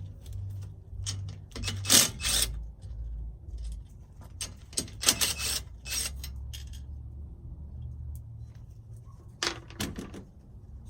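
Metallic clinks and rattles, in clusters with pauses between, over a low steady hum.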